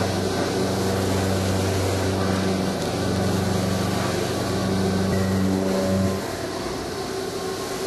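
Five-axis machining center face-milling a metal propeller blade with a 40 mm face mill at 1,400 rpm, 1.5 mm depth of cut: a steady low cutting hum that drops off about six seconds in.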